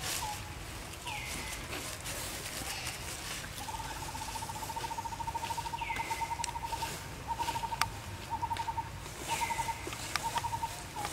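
Bird calling: a fast trill of about ten notes a second at one steady pitch, first a long run of about three seconds, then several shorter runs. Short whistles sliding down and levelling off come now and then, with a few sharp clicks.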